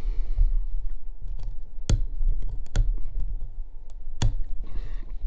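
Irregular sharp clicks and ticks of a hobby knife blade working around the bead of an RC tire, cutting the glue between the rubber tire and the plastic wheel, with a few louder clicks.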